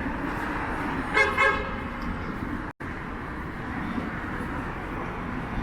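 A car horn gives two short toots in quick succession about a second in, over steady wind and traffic noise. The audio cuts out for an instant about halfway through.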